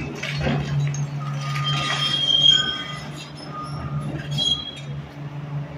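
Tracked hydraulic excavator demolishing a concrete wall: its diesel engine runs steadily while debris crashes down in the first second. High metallic squeals follow, about two seconds in and again near four and a half seconds, as the machine works against the structure.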